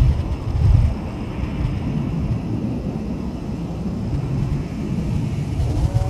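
Wind buffeting the microphone: an uneven low rumble that gusts harder about a second in, over a steadier background hum.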